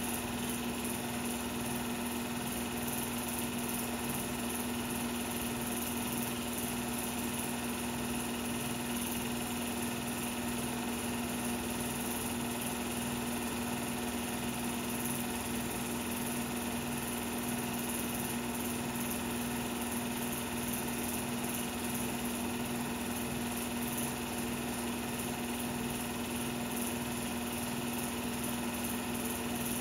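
16mm film projector running: a steady motor hum and rapid mechanical whir that doesn't change.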